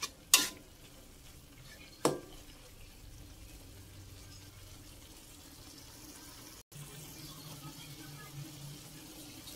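Metal spatula knocking against a wok twice in the first two seconds, then the faint steady bubbling of an oyster-sauce gravy simmering.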